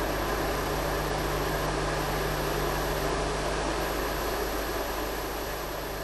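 Steady hiss with a constant low mains hum, the noise of a videotape recording with no other sound on it; it starts to fade away near the end.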